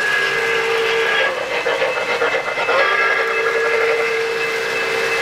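Whistle from an O-gauge model steam train's sound system: a steady chord, blown twice with a break of about two seconds between the blasts. Model train cars clatter over the three-rail track during the break.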